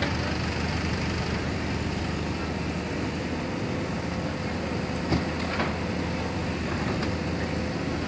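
JCB backhoe loader's diesel engine running steadily as it works its backhoe bucket, with a faint steady whine over the engine. A sharp knock comes about five seconds in, followed by a lighter one half a second later.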